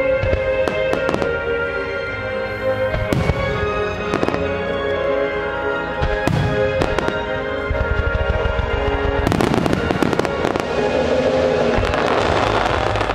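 Music starmine fireworks: many shells bursting in rapid succession, fired in time to music that plays along with them. About nine seconds in, the bursts thicken into dense, rapid crackling as many shells go off together.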